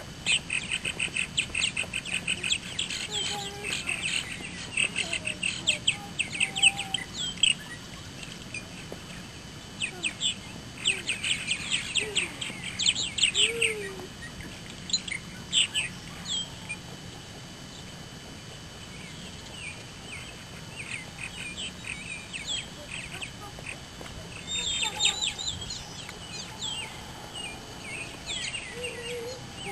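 Purple martin colony chattering: many quick, high chirping calls in dense runs, busiest over the first half, thinning out in the middle and picking up again near the end.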